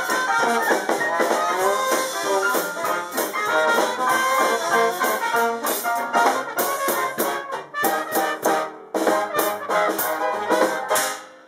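Live Dixieland jazz band playing: trumpet and trombone over keyboard, with a strong beat. The tune finishes with a run of accented hits and stops abruptly just before the end.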